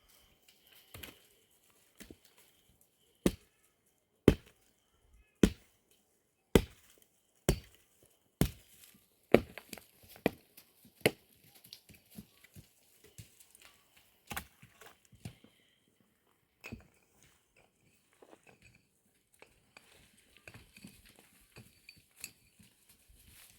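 Firewood being chopped: a run of sharp, hard strokes about one a second, the loudest in the first half, then lighter, scattered knocks.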